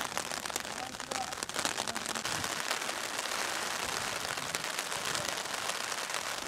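Steady rain falling, with many small drop hits on surfaces close by.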